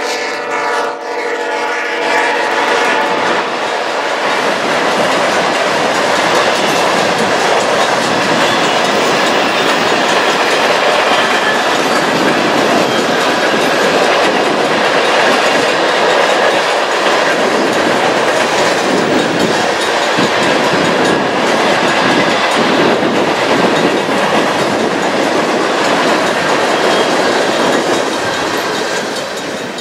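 A freight train's cars passing close by: a steady rush and clatter of steel wheels on the rails. A horn blast dies away in the first moment.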